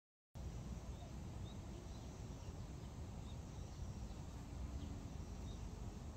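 Outdoor background: a steady low rumble of wind and distant noise with faint, scattered high chirps of small birds. It starts abruptly after a fraction of a second of silence.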